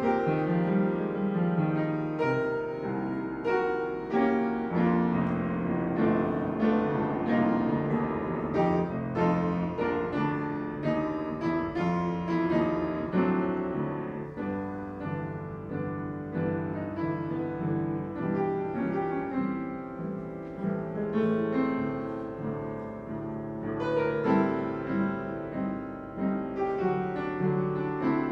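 Piano music, a steady run of struck notes and chords.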